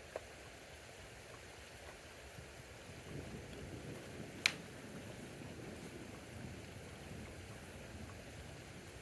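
Steady rain falling as a thunderstorm dies down, with a low rumble swelling through the middle and a single sharp tap about four and a half seconds in.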